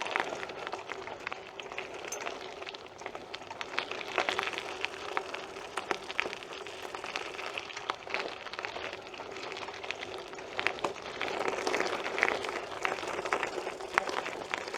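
BMX bike rolling up a rocky dirt trail: tyres crunching over stones and gravel with many small clicks and rattles, a little louder near the end.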